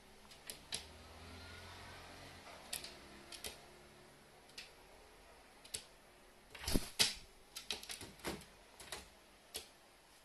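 A carrion crow moving on a wooden floor around a clear plastic tray: scattered sharp clicks and taps from its feet and beak, with a louder cluster of knocks about seven seconds in.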